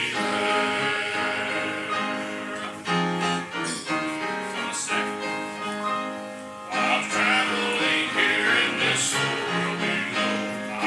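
Gospel singing with instrumental accompaniment, held notes moving through a slow melody, with a short dip in loudness just before the end.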